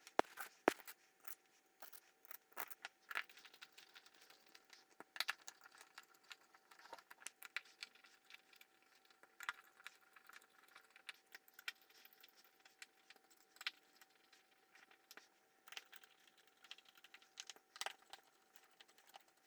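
Faint, irregular clicks and taps of small metal screws and a hex driver against quadcopter frame plates as the long screws are fitted through the motor plate.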